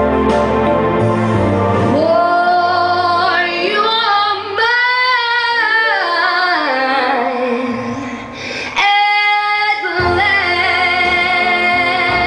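A woman singing a slow soul ballad into a microphone over a karaoke backing track, with long, sliding held notes. The backing bass drops out briefly about nine seconds in.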